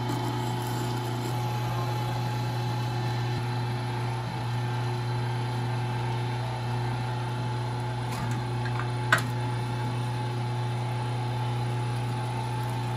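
Electric meat grinder running steadily with a low hum as fried cheese curds and a burger are fed through it and pushed out the grinding plate. A single sharp click about nine seconds in.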